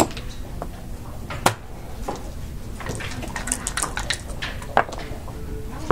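Backgammon checkers clacking as they are moved and set down on the board, with a rapid rattle of dice in a dice cup a little past halfway and a few single sharp clicks between.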